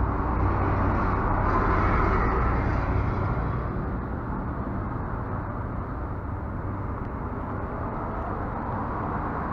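Steady outdoor background noise with a low rumble, louder for the first three seconds or so.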